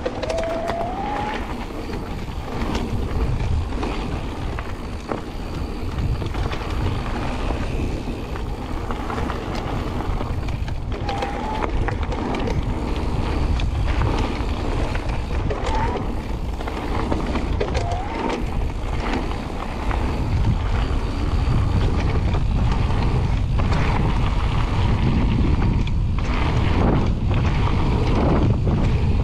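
Electric mountain bike descending a gravel trail: tyres rolling and crunching over gravel, the bike rattling over bumps, and wind buffeting the microphone. A few brief squeaks come through.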